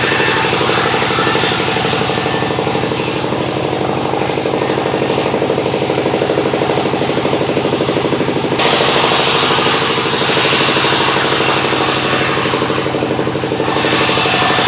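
Sawmill running, its engine-driven saw cutting sengon wood: a steady engine note underneath and a high hiss of the blade in the timber that fades and swells, jumping up sharply about halfway through.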